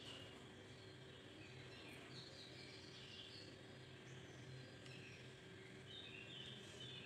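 Near silence: room tone with a steady low hum and faint, scattered high chirps in the background.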